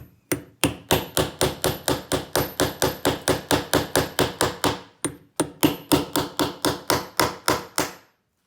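A hammer tapping a cutting tool into the seam of a plastic-coated padlock body in quick, even light strikes, about four a second, with a brief pause a little past halfway. This is the first stage, cutting an initial groove along the join to split the lock.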